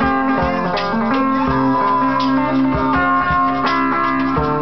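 Guitars played together in a steady, rhythmic tune, with plucked and strummed notes.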